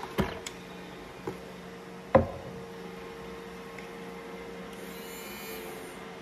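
A few light clicks and knocks of things handled on a kitchen counter, the sharpest about two seconds in, over a faint steady hum.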